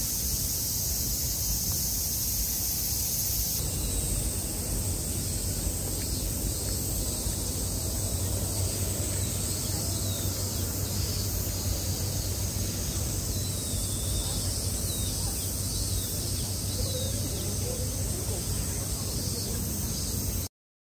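Outdoor ambience: a steady, high-pitched insect drone over a low rumble, with a few faint chirps in the second half. It cuts off suddenly just before the end.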